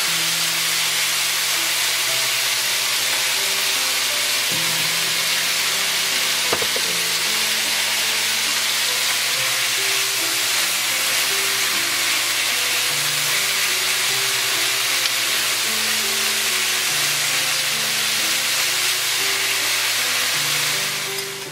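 Smoked duck, kimchi and onion sizzling steadily as they are stir-fried with chopsticks in a hot nonstick frying pan, the kimchi frying in the duck's own rendered fat, with a single sharp tap about six and a half seconds in. Background music plays a melody underneath.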